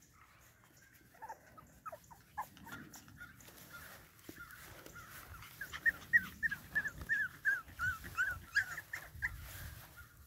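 Boston Terrier puppy whimpering in a string of short, high cries, coming faster and louder about halfway through.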